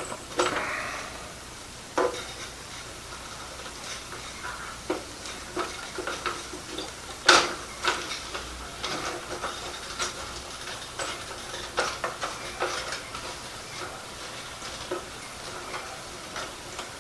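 Venison burgers sizzling in a frying pan, a steady hiss broken by scattered clicks and knocks, the loudest about seven seconds in.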